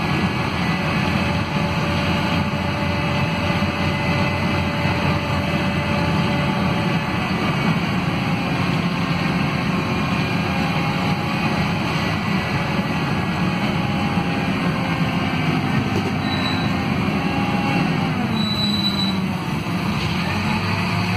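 City bus drivetrain with a ZF Ecomat automatic transmission, heard from inside the cabin: a steady running rumble with thin whine tones, in fourth gear with the lockup clutch engaged and then in fifth. Near the end the pitch falls as the bus slows and the gearbox drops back to second on the torque converter.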